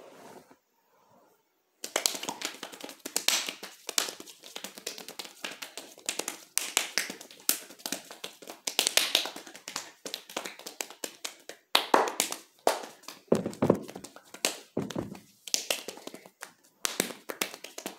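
Fast hand claps and slaps in a hand-clapping body-percussion routine, beginning about two seconds in as a rapid, uneven run of sharp smacks. There are short breaks partway through and near the end, and a few deeper thumping slaps in the latter half.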